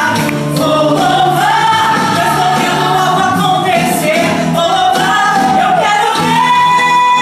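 A woman singing a Portuguese gospel song into a microphone, with music behind her. About six seconds in she holds one long high note.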